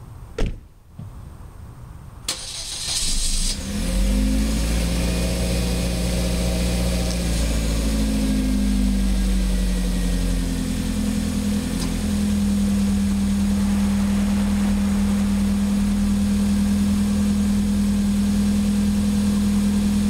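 Hyundai Genesis Coupe 2.0T's turbocharged four-cylinder engine starting. A sharp click is followed about two seconds later by a brief crank, then the engine catches at a fast idle. The idle drops lower and settles into a steady idle about eight seconds after it fires.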